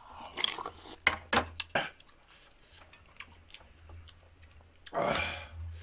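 Close-up eating sounds: slurping and chewing of spicy ramen, with a few sharp clicks of cutlery against the dishes in the first couple of seconds and a louder, breathy slurp near the end.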